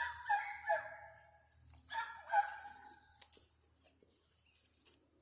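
Two drawn-out animal calls, one right at the start and one about two seconds in, each falling in pitch at the end; a few faint ticks follow.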